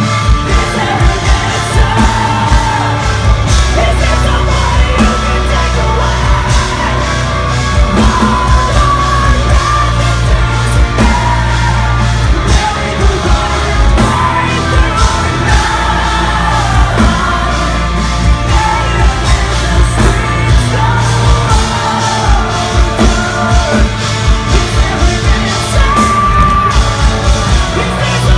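Progressive metal band playing live at full volume: heavy drums, bass and distorted guitars under sung and yelled vocals.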